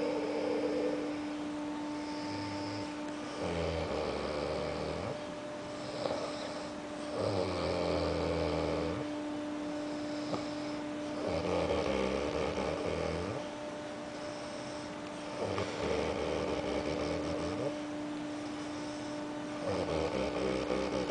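A sleeping man snoring in long, loud, rumbling snores, one about every four seconds, each lasting one to two seconds, with two shorter ones at the start. A steady whining tone runs beneath them.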